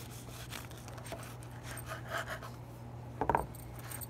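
Serrated bread knife sawing through a soft, freshly baked sesame-topped stuffed bun on a wooden board: a run of soft scratchy strokes, with a brief louder sound about three seconds in, over a steady low hum.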